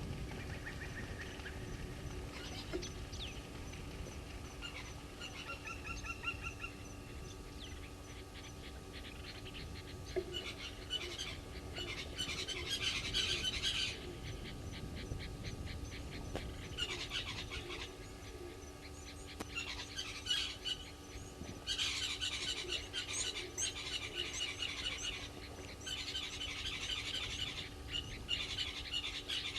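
Wild birds calling, mostly in repeated bursts of quick high chirps, loudest in the second half, over a steady low background rumble.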